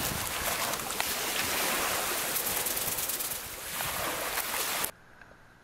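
Steady noise of wind and sea surf, cutting off abruptly about five seconds in to a faint hiss.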